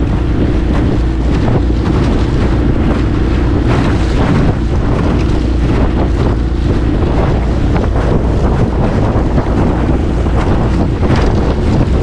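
Strong wind buffeting the microphone over the steady drone of a Mercury 9.9 four-stroke outboard, with choppy water splashing against the aluminium jon boat's hull.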